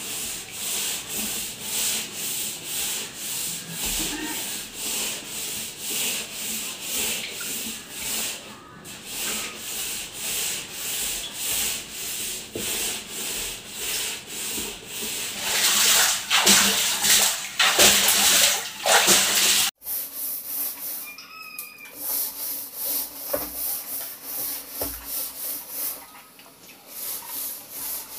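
A scouring pad scrubbed hard back and forth against the stained wall of a ribbed water tank, about two strokes a second, scouring off brown deposits. The scrubbing grows louder for a few seconds and breaks off abruptly once before carrying on.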